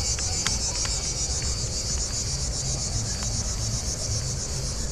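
A steady, high, pulsing insect chorus, with a low rumble underneath.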